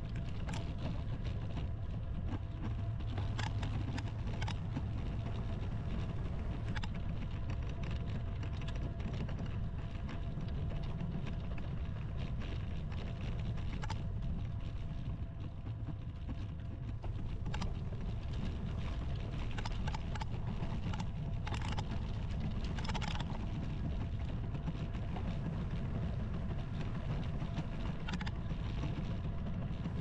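Steady low rumble of wind on the microphone and tyres on tarmac from a bicycle being ridden, with a few light clicks and rattles scattered through it.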